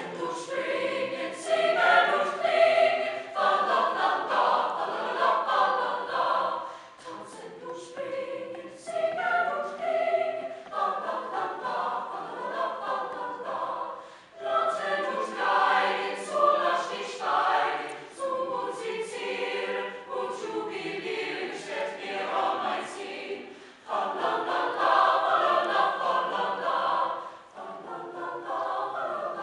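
Mixed choir of men's and women's voices singing, in phrases separated by brief dips.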